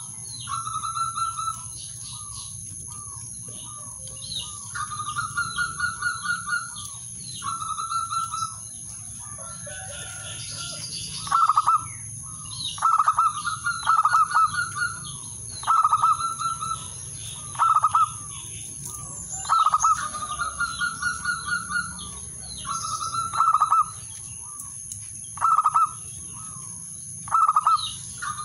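Male zebra dove (perkutut) singing: a string of repeated phrases of rapid, rolling coos, some short and loud and others longer and softer, with short pauses between them.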